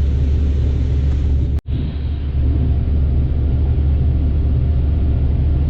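Combine harvester running steadily at harvest work, a loud, even low drone; it cuts out for an instant about a second and a half in and resumes unchanged.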